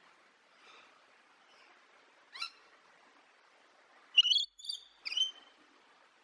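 Bird calls: a couple of faint single calls, then a quick series of three louder, sharp calls starting about four seconds in, the first of them the loudest.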